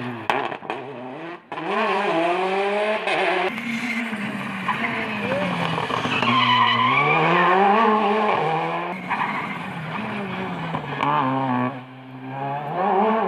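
Rally car engines revving hard as the cars pass one after another, pitch climbing and dropping repeatedly through gear changes and lifts.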